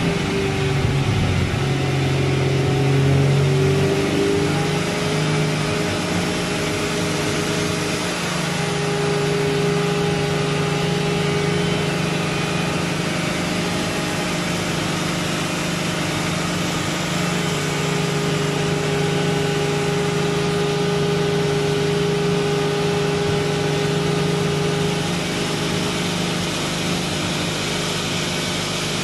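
Toyota 2JZ-GTE turbocharged straight-six in a BMW E36 M3 running on a chassis dyno, its engine note shifting in pitch in the first few seconds and then holding mostly steady. The freshly rebuilt engine is being run in on a mild tune.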